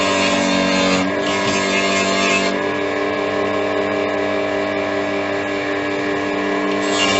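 An electric power tool's motor running steadily, with rough grinding noise from work against the metal that comes and goes: strong in the first couple of seconds, easing through the middle, and returning near the end.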